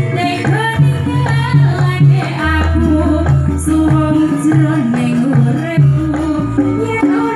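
A woman singing a Javanese song into a microphone through loudspeakers, backed by a live band with drums and deep held bass notes.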